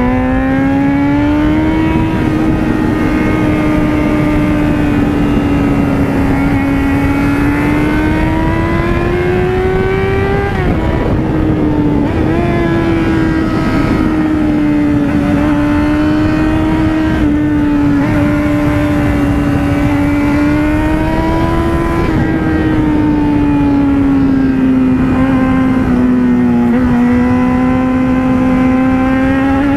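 Yamaha FZ6N's inline-four engine running at road speed, its note rising and falling with the throttle and dropping sharply about ten seconds in. Wind rushes over the helmet camera underneath.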